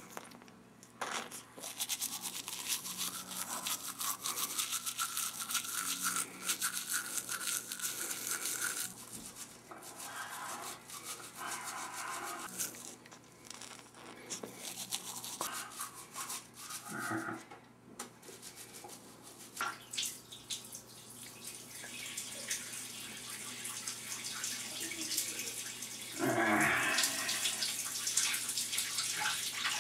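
Teeth being brushed with a toothbrush: fast scrubbing strokes, stopping briefly a few times. Near the end a louder, different sound takes over.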